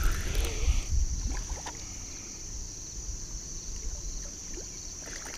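Wind rumbling on the microphone over a steady high-pitched hiss, with a few light handling knocks in the first second or so.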